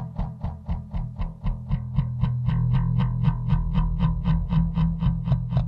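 Bass guitar playing a steady, even run of plucked notes, about four to five a second, over sustained low notes.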